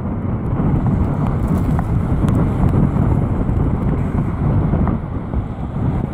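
Gale-force wind buffeting the microphone, a heavy, continuous low rumble.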